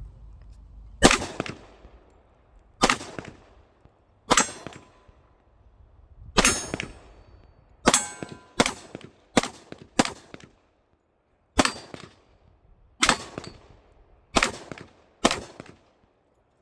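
Twelve single gunshots fired at an uneven pace, mostly one to two seconds apart, with a quicker string of four near the middle; each crack trails off in a short echo.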